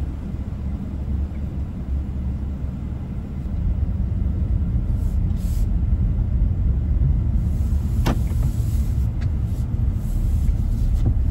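Inside the cabin of a Kia K3 pulling away and driving: a low, steady engine and road rumble that gets louder about three and a half seconds in as the car gathers speed. A single click about eight seconds in.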